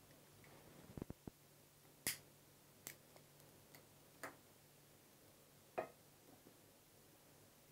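Near silence broken by faint handling clicks and taps from lab apparatus being set up to light an alcohol lamp under the flask: a quick run of three clicks about a second in, then a few single taps spread over the rest.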